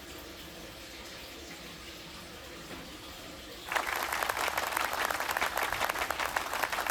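Quiet room hiss, then a little over halfway through a group of people suddenly breaks into applause, a dense run of clapping.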